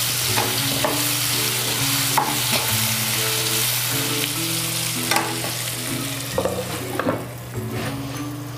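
Raw mango pieces sizzling in hot oil in a nonstick kadhai while being stirred with a spatula, the spatula scraping and tapping against the pan now and then. The sizzle gets quieter near the end as a glass lid goes on the pan.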